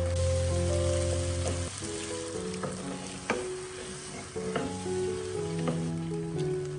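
Food sizzling as it fries in a pan, with a few sharp clicks of a utensil stirring against it, over background music of slow held notes.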